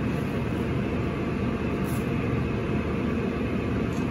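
Steady rumbling noise from a gas range, its burner lit under a steel pot of water at a rolling boil.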